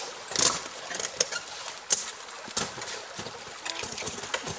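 Ice axes and crampons striking a frozen waterfall: about half a dozen sharp, irregular knocks as the tools and boot points are driven into the ice.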